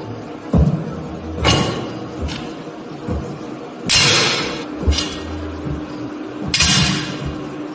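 A series of foley sound effects: about six sharp thumps and swishing hits, irregularly spaced, over faint steady background music.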